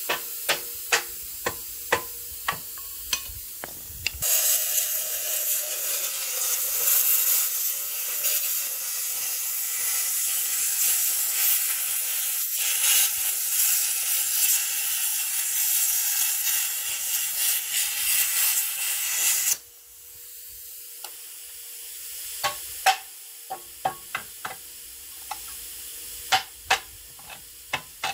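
Sharp hammer taps on a steel car subframe, then a plasma cutter cutting through the steel with a steady hiss for about fifteen seconds that cuts off suddenly, followed by more hammer taps.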